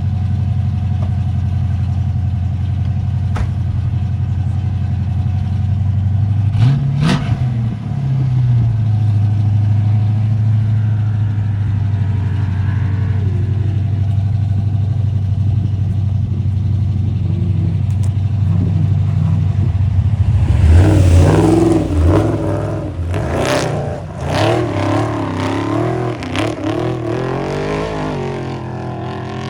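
Off-road race vehicle's engine idling steadily, with a quick blip of the throttle about seven seconds in. From about twenty seconds in the engine is revved hard, its pitch rising and falling as it pulls away, over a loud rush of noise.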